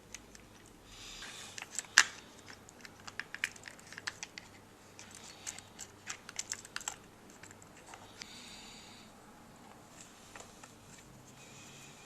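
Scattered light clicks and taps of small plastic and metal RC car parts being handled on the chassis. The loudest click comes about two seconds in, there is a busy run of clicks in the middle, and there are a couple of brief rustles.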